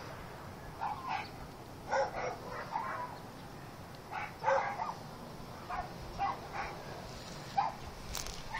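A dog barking repeatedly, about a dozen short barks in uneven clusters, over a steady low background rumble.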